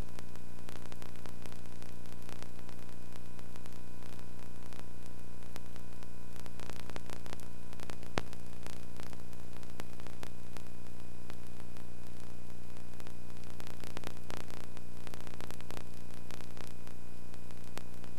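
Steady electrical hum under a constant hiss, with scattered faint clicks and one sharper click about eight seconds in: the noise floor of an old film transfer with no recorded sound.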